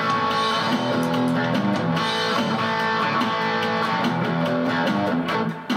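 Instrumental passage of a guitar-led song: strummed guitar with no singing, briefly dropping in loudness near the end.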